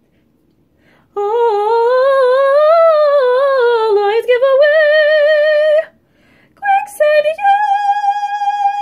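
A female voice singing unaccompanied, a long vibrato-laden line that swells up in pitch and back down. After a short break it picks up on a few higher notes and settles into one long held note.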